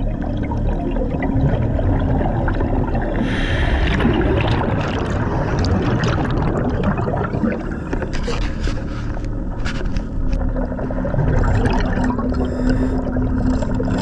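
Underwater water noise around a working diver: gurgling and rushing of water and exhaust bubbles. A brief louder rush comes a few seconds in, scattered scrapes and knocks follow in the second half, and a steady low hum joins about ten seconds in.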